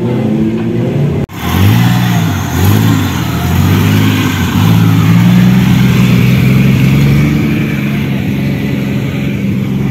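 Off-road buggy engine revving in several rising and falling swells, then running steadily at higher revs as the buggy drives across mud. The sound breaks off sharply about a second in before the revving starts.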